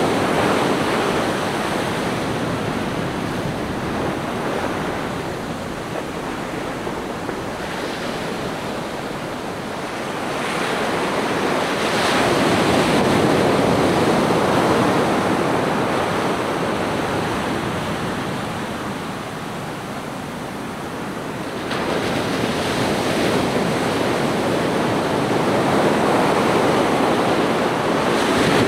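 Ocean surf breaking on a sandy beach, a continuous wash of water that swells and ebbs with each set of waves, louder about twelve seconds in and again from about two-thirds of the way through.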